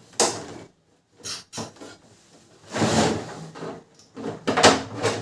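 Plastic side cover of a Canon imageCLASS MF221d printer being worked off by hand: a string of short clicks, knocks and scraping rubs as the panel is pried and pulled loose.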